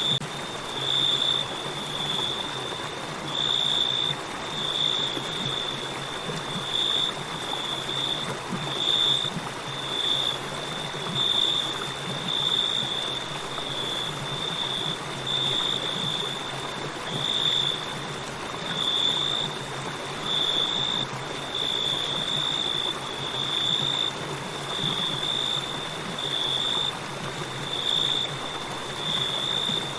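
Flowing river water as a steady rushing, with crickets chirping over it in high, pulsing chirps about once a second.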